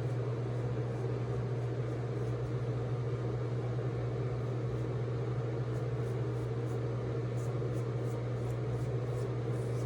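A steady low mechanical hum with a hiss over it, unchanging in level, with a few faint light ticks from about six seconds in.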